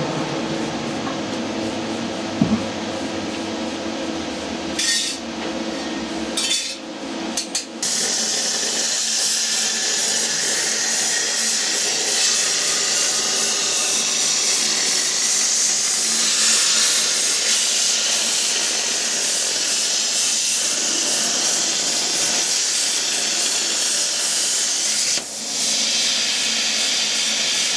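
Plasma cutter cutting sheet steel: a steady, loud hiss of the arc and air jet, broken by a few brief stops about five to eight seconds in.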